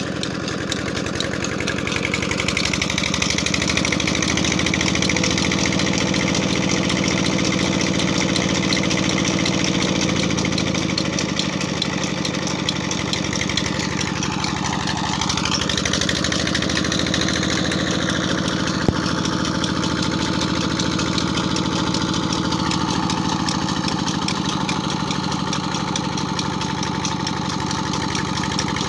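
Ghazi 16 hp single-cylinder diesel engine running steadily, driving a belt-driven water pump. It gets a little louder a few seconds in, and a single sharp click sounds about two-thirds of the way through.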